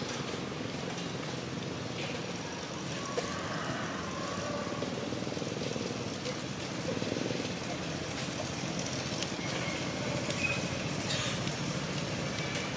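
Steady outdoor background noise with a low, even hum, without clear events; a few faint ticks stand out briefly.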